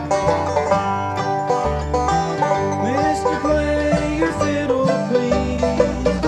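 Bluegrass band playing an instrumental break without singing: banjo, guitar, mandolin and bass, over a steady bass beat.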